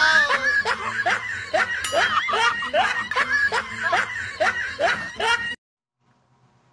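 Rhythmic snickering laughter, a run of short rising 'heh' sounds about two or three a second, that cuts off abruptly near the end.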